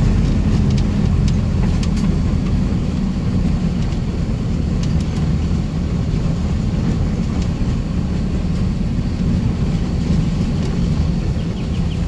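Car engine running with a steady low road rumble, heard from inside the car as it drives down a steep concrete road.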